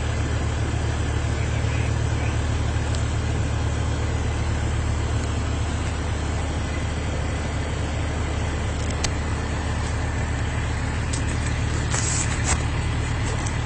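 Steady low rumble of a car, engine and road noise, with a few sharp clicks about nine seconds in and a short cluster of clicks near the end.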